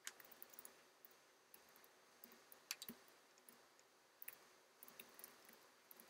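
Faint, irregular clicks of computer keys being typed, coming singly and in short clusters.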